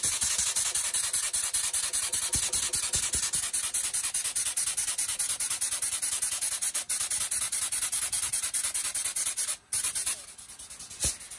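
Hose-fed power grease gun pumping grease into a locomotive side-rod crankpin fitting, a rapid even chatter of pump strokes. It stops about nine and a half seconds in, runs again briefly, and a single sharp click follows near the end.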